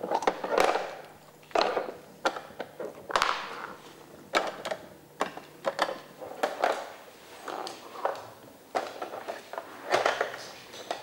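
A dog working the Trixie Move2Win puzzle toy: its plastic parts clack, knock and scrape irregularly as the dog pushes and slides them to get at treats, about one knock a second.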